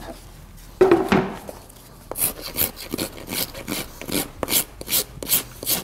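Farrier's rasp filing the fiberglass casting material on a cast-on wood horseshoe, the final dressing of the cast. A louder scrape comes about a second in, then a run of short strokes at about three a second.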